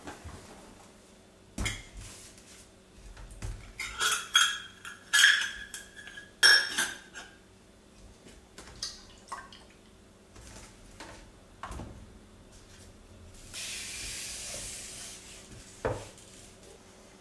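Glass bottles and a glass jar of laundry supplies clinking and knocking together as they are handled in a wicker basket. There are a few clicks, then a run of ringing glass clinks, the loudest, about four to seven seconds in. A soft hiss lasting about a second and a half comes near the end.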